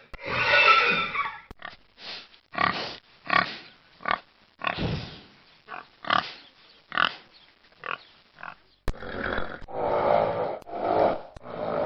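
Farm animal sound effects: a long loud call at the start, then a run of short separate grunts about one every 0.7 s. A sharp click near 9 s is followed by denser, louder grunting.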